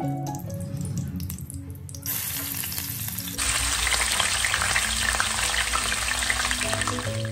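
Hot oil with whole spices sizzling in a kadai, then raw mutton pieces going into the oil about three seconds in. The sizzle turns much louder and fuller and keeps frying steadily.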